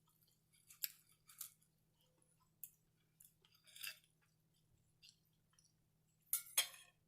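Close-miked chewing: a person eating with wet mouth clicks and smacks every second or so, the loudest two near the end.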